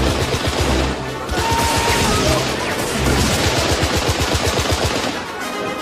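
Machine gun firing in rapid bursts: a short burst, a brief break about a second in, then a long sustained burst that fades near the end, over a music score.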